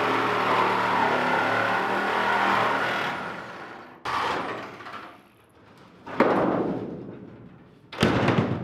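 Corded reciprocating saw cutting through the truck bed's rusty sheet steel, running steadily until about three seconds in and then winding down. Then three sharp metal clanks, a couple of seconds apart, as the cut sheet metal is handled.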